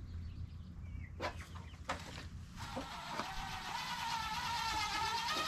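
A rooster crowing: one long, drawn-out crow that begins partway through and wavers slightly in pitch, preceded by a couple of light knocks.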